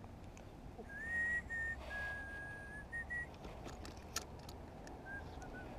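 A clear whistle of a few held notes, first rising and then level, starting about a second in and lasting about two seconds. Light clicks follow from the spinning reel as its handle is turned.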